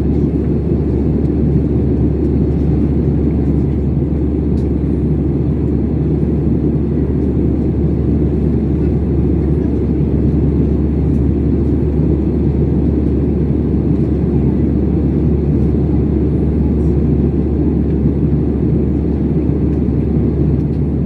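Steady low rumble of engine and airflow noise inside the cabin of an Airbus A320 airliner in cruise, heard from a window seat.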